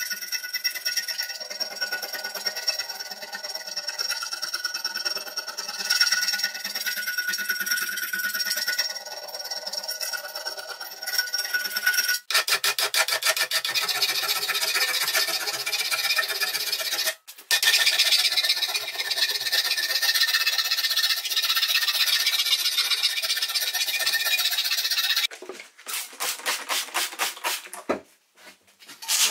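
Rust being abraded off an old steel wrench, a continuous rubbing and rasping of abrasive on metal. Over the first twelve seconds a steady high whine runs under it; after that it turns into a faster, harsher scraping. The sound cuts off abruptly a few times.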